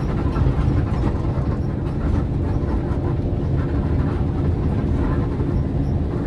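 Steady low rumble of an intercity bus's engine and tyres on the road, heard from inside the cabin while it drives along.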